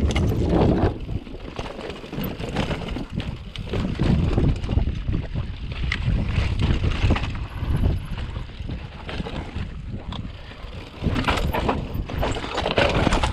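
Wind rushing over the microphone as a downhill mountain bike rolls fast over dirt and rocks, with the tyres and frame rattling and knocking irregularly over the rough ground.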